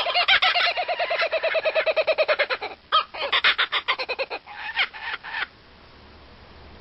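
A bird calling in a fast run of short repeated notes, about nine a second, sliding lower in pitch, then a few broken bursts of calls that stop about five and a half seconds in.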